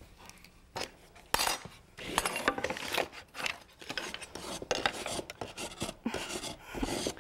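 Wood rasp filing the angled end of a pine board with repeated back-and-forth scraping strokes that start about two seconds in. It is smoothing the uneven edge left by a freehand saw cut.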